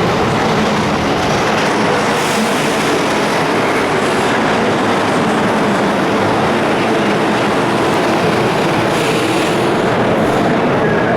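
Mexico City Metro train running at speed, a loud steady rumble heard from inside the car, with brief hisses now and then.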